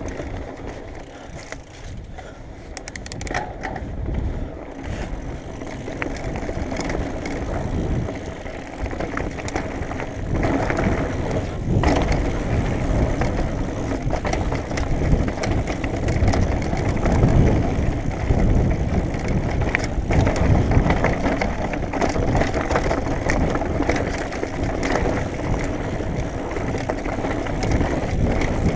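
Mountain bike descending a dirt singletrack at speed: wind rumbling on the microphone, tyre noise on the dirt, and the bike knocking and rattling over bumps. It gets louder from about ten seconds in as the speed picks up.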